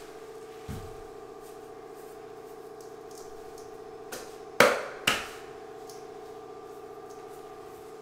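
Two sharp knocks about half a second apart near the middle, from tile-setting work with leveling clips, over a steady low hum. A weaker knock comes just under a second in.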